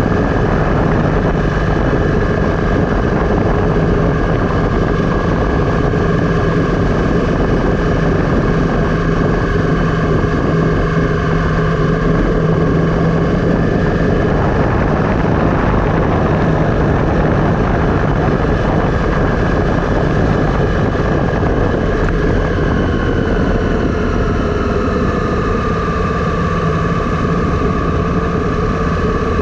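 A vehicle's steady drone while descending a road, its tones shifting in pitch in the last few seconds.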